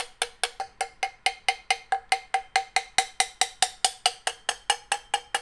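Small dent hammer tapping rapidly and lightly on a brass trombone tuning slide, about six taps a second. Each tap sets the tube ringing briefly. The hammer works down the high spots of a dent over a steel dent ball inside the tube, reshaping it round.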